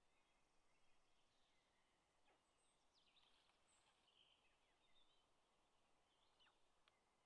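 Near silence: faint outdoor background hiss with a few faint, brief bird chirps and sliding calls, clustered a few seconds in and once more near the end.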